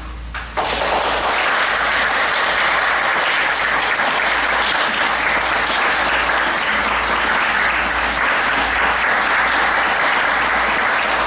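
Audience applauding, the clapping breaking out suddenly about half a second in as the last of the music fades, then holding steady.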